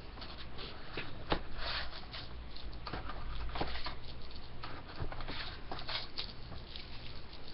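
Packs of Upper Deck hockey cards rustling and crinkling as they are handled and taken out of the box, with scattered sharp clicks.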